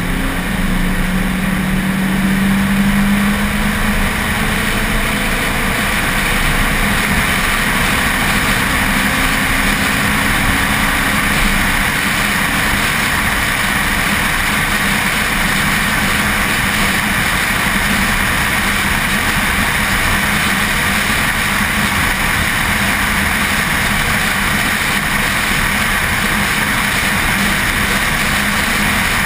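Car engine running at track speed, its note rising over the first few seconds and then holding steady, under a continuous rush of wind and road noise.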